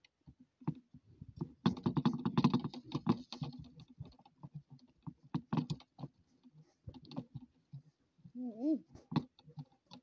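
Toy washing machine being handled: irregular clicking and clattering of hard plastic as a hand rummages in its drum, busiest about two seconds in, then scattered clicks.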